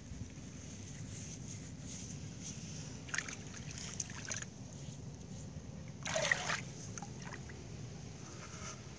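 Shallow muddy water splashing and sloshing as hands and feet move in it at a PVC pipe fish trap, in short bursts about three, four and six seconds in, the last the loudest, over a steady low rumble.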